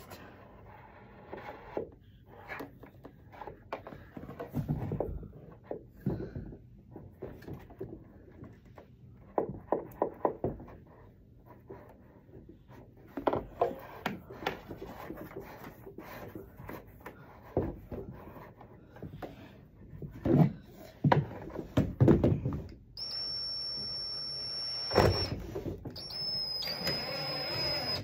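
Scattered knocks and handling clatter, then about 23 seconds in a power drill starts running with a steady high whine, stops briefly and runs again near the end, drilling to enlarge a hole for a coax cable that is too small.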